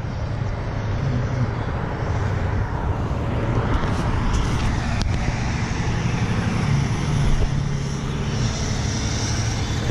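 Road traffic passing close by over a steady low engine drone: a car goes by a few seconds in, then a semi tractor-trailer passes with a rush of tyre and air noise near the end.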